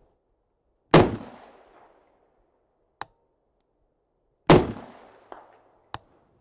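Two shots from a 5.56 rifle fitted with a B&T M.A.R.S. suppressor, about three and a half seconds apart, each trailing off in a short echo. Fainter sharp clicks follow.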